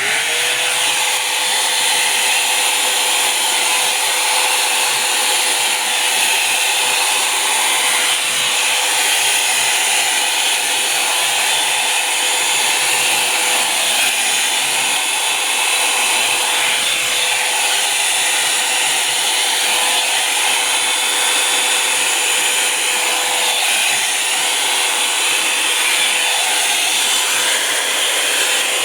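Revlon Volumizer Plus hot-air brush dryer switched on and running steadily: a motor whine with a rush of air that rises to speed right at the start and holds even throughout.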